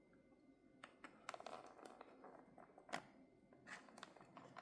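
Near silence with scattered faint small clicks and taps from hands handling a diecast model car, a quick cluster about a second in and single ticks later on.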